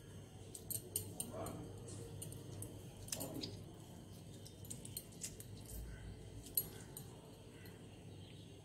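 Faint handling sounds of a lime being squeezed by hand over raw chicken in a glass bowl, with scattered small clicks and taps.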